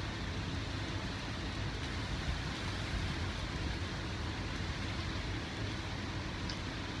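Steady background noise: an even hiss with a low rumble underneath, holding level throughout with no distinct events.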